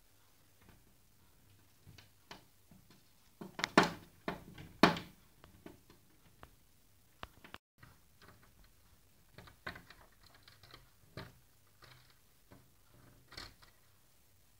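Pet parrot knocking and tapping, likely with its beak: irregular short clicks and knocks, with a loud cluster of knocks about four to five seconds in and scattered lighter taps after.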